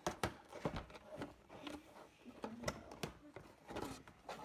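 Faint scattered clicks and light knocks of boxes being handled and opened, with a brief low murmur of a voice.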